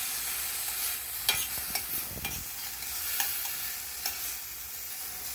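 Onion, tomato and olives sautéing in olive oil in a frying pan: a steady sizzle, with a few sharp clicks of a utensil stirring against the pan.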